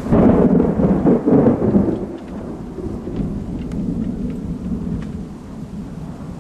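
Thunder rumbling, loudest in the first two seconds and then slowly dying away, over steady rain with a few scattered drop ticks.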